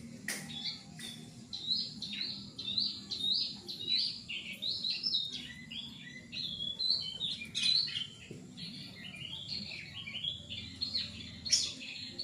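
Cucak keling songbird singing 'gacor', in a continuous rapid run of short chirps and warbled notes.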